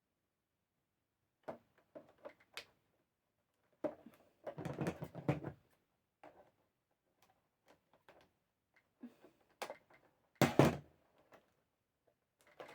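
Plastic action figures and their accessories being handled: scattered clicks and taps, a longer clattering rustle from about four to five and a half seconds in, and a louder knock about ten seconds in.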